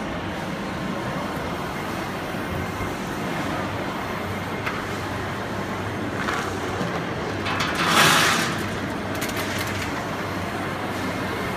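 Steady din of machinery running in a large exhibition hall, with a louder hissing rush about eight seconds in.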